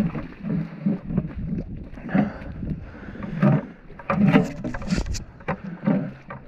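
Footsteps of rubber boots on soft, wet, muddy ground, a dull thud about every half second at walking pace, with a few sharper clicks around four to five seconds in.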